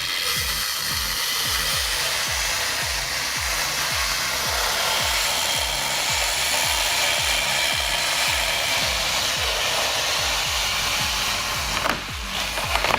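Chainsaw running at full throttle, cutting through wood with a steady, high-pitched motor noise, over a regular low rhythmic pulse. The sound breaks off and changes about a second before the end.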